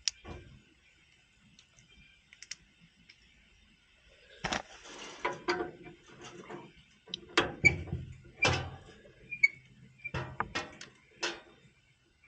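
Irregular small clicks and knocks of hands and metal parts as a pressure switch is fitted and threaded onto a refrigerant service port. It is mostly quiet for the first few seconds, then the clicking picks up.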